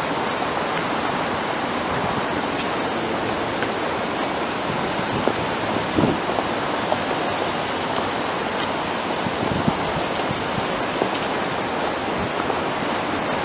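A steady, even rushing noise that holds at one level throughout.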